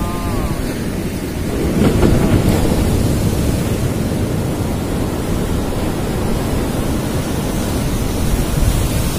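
Sea waves breaking and washing against rocks, with wind rumbling on the microphone; the surf swells louder about two seconds in.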